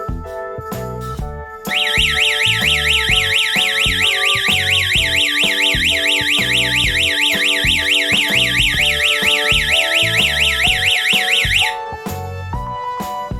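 Electronic siren of a wired home security alarm system, a fast warble sweeping up and down about five times a second, starting about two seconds in and cutting off abruptly ten seconds later: the alarm's timed ten-second sounding, after which it switches itself off. Background music plays underneath.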